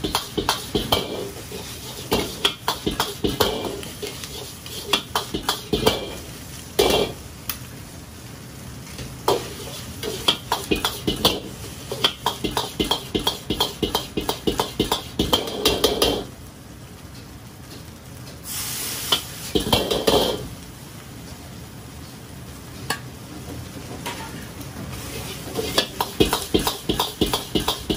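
Metal ladle clanking and scraping against a black steel wok in quick runs of strikes, about four a second, as fried rice is stir-fried and tossed, over the steady sizzle of the rice. A little past the middle the clanking stops for several seconds. In that gap there is a short, loud hiss, and the clanking picks up again near the end.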